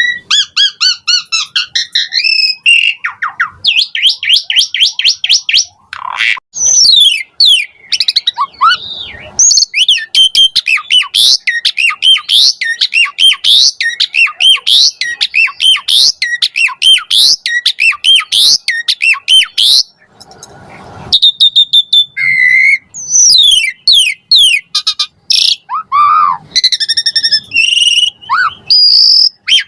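Asian pied starling singing a long, varied song full of imitated phrases: rapid runs of repeated chirps, sweeping whistles and harsh notes, with a short break about twenty seconds in.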